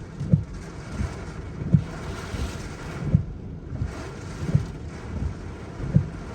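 Steady rushing wind noise with a low thump repeating evenly about every one and a half seconds.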